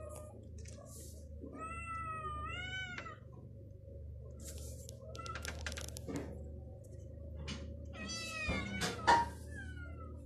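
Domestic cats meowing: one long meow that rises and falls about a second and a half in, then a few more meows near the end. Scattered light clicks sit in the middle, and a sharp knock about nine seconds in is the loudest sound.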